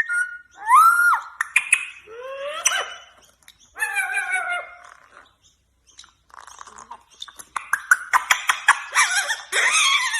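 Pet parrot vocalizing. It gives short rising whistles and warbling calls, pauses briefly, then makes a rapid run of clicks and harsh squawks near the end.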